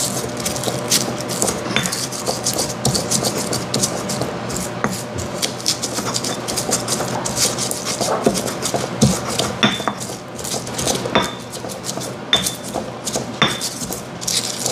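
Stone pestle pounding and grinding chilies, garlic and other spices in a black stone mortar (Indonesian ulekan and cobek): a rapid, irregular run of knocks and scrapes. A few sharper, ringing knocks of stone on stone come near the end.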